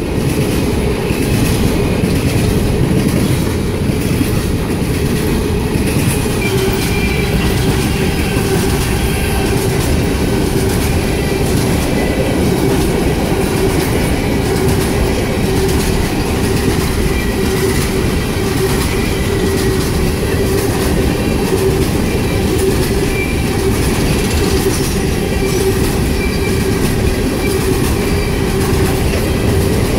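Empty coal hopper cars of a freight train rolling past at track speed: a loud, steady rumble and clatter of the wheels, with a steady tone held through it that grows stronger a few seconds in.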